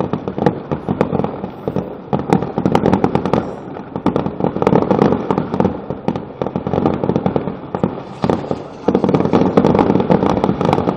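Aerial fireworks display: a rapid, dense crackle of many small bangs and pops, easing off briefly about eight seconds in and then coming back louder.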